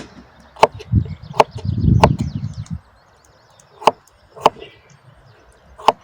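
Sharp chopping strikes on wood, six blows at an uneven pace, with a dull low thud-and-rumble around two seconds in.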